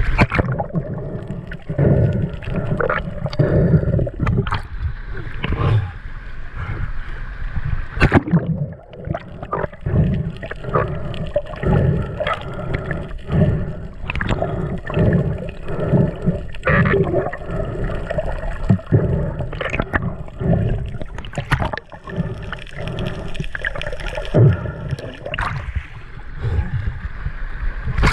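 Muffled water noise picked up by a camera in the sea, half submerged and underwater: sloshing and gurgling with irregular low thumps and many sharp clicks and knocks, over a faint steady hum.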